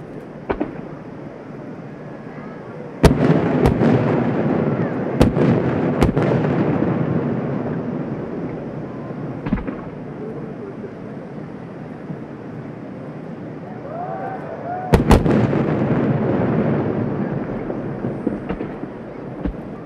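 Large aerial firework shells bursting, heard from about 650 m away: sharp booms, four spread over about three seconds starting a few seconds in and a close pair near the end, each followed by a long rolling echo.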